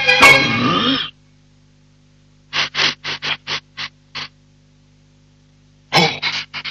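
A snatch of music cuts off about a second in. After a pause comes a run of seven quick, short sniffs, then a few more near the end: crocodiles sniffing out a scent.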